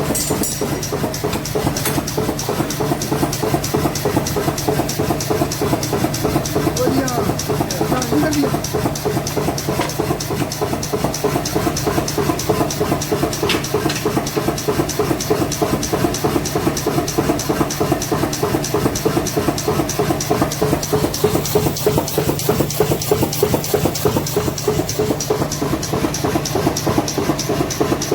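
A machine running steadily with a rapid, even knocking rhythm over a constant low hum.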